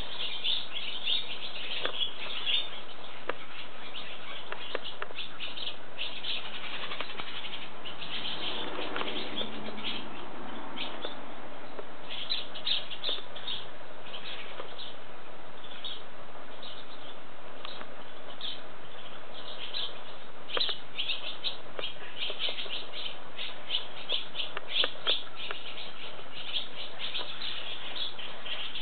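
Barn swallows twittering in a lively, continuous stream of rapid high chirps as they fly about their mud nests under the roof beams during nest building.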